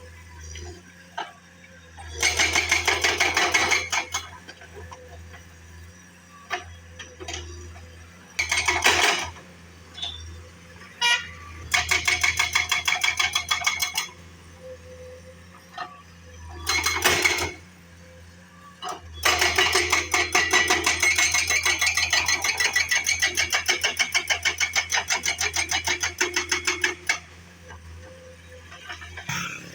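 Road-work machine pounding rapidly and evenly in bursts of one to eight seconds, the longest near the end, over a steady low engine hum.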